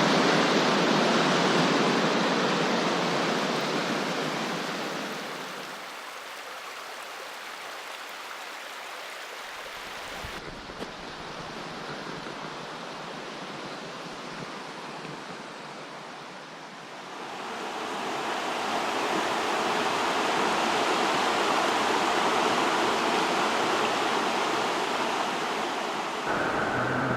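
River water rushing over rapids, a steady hiss-like rush that drops quieter through the middle and swells louder again for the last stretch.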